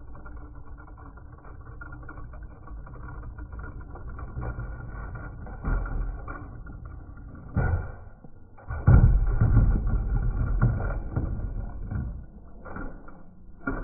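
Toy monster trucks rolling and clattering down a ramp, across a wooden tabletop and into a plastic sled, heard muffled and low. There are a few sharp knocks, then a louder rumble about nine seconds in.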